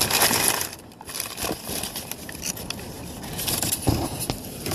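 Packing paper crumpling loudly for under a second, then quieter rustling with a few light knocks as items are handled in the box.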